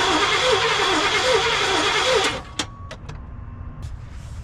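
1989 GMC Sierra engine cranking over on the starter without firing, with a pulsing, uneven whir; it stops about two seconds in, followed by a few light clicks. It won't start because no fuel reaches the throttle body, which the owner puts down to a failed fuel pump.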